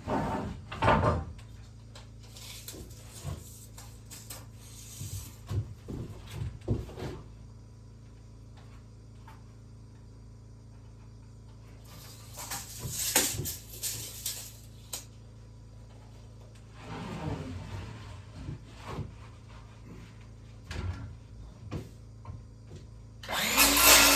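Wood being handled and worked by hand: scattered knocks and short scrapes, with a longer rasping stretch in the middle. A loud, steady noise starts near the end.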